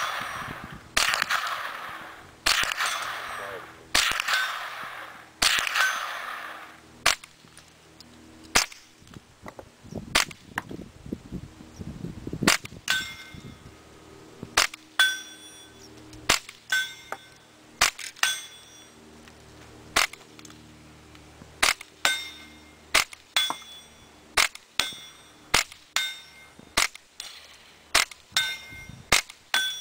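Suppressed Ruger 10/22 .22 LR semi-auto rifle firing. The first four rounds are standard velocity, each a loud report with a sonic crack and a long echo trailing for about a second. Then comes a long string of subsonic rounds, about one a second, each a short, quiet pop with no crack, many with a faint short ring after them.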